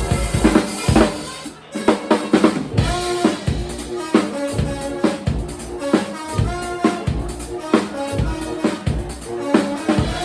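A live band playing, with a drum kit driving it on bass drum and snare under held pitched instrument notes. The music drops out briefly about a second and a half in, then comes back.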